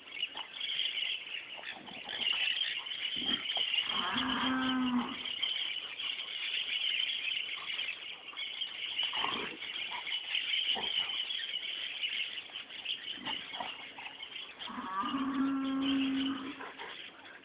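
Two long animal calls, each held at a steady pitch for about a second: one about four seconds in and one near the end. A steady high hiss runs underneath, with a few short knocks between the calls.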